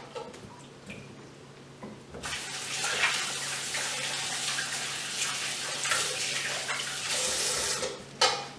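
Kitchen faucet running into a sink while hands are washed. The water comes on about two seconds in, runs steadily, and is shut off near the end.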